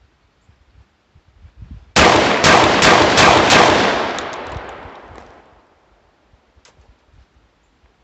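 Hatfield SAS 12-gauge semi-automatic shotgun fired five times in rapid succession, about three shots a second, cycling each round, with the echo rolling away for a couple of seconds after the last shot. A faint click follows.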